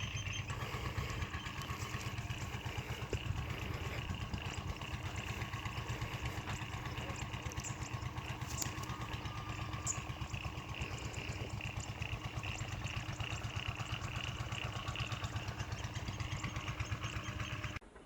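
A small engine running steadily at an even, fast pulse, cutting off abruptly near the end.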